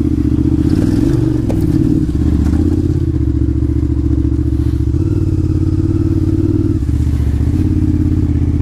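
KTM 950 Adventure's V-twin engine running at low, varying throttle while riding a muddy trail, its note shifting a few times, about a second in, around five seconds and again near seven seconds.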